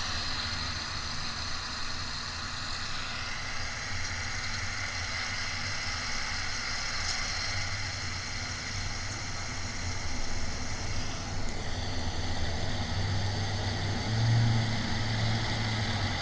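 Steady background rumble with a hiss over it, the rumble swelling briefly near the end.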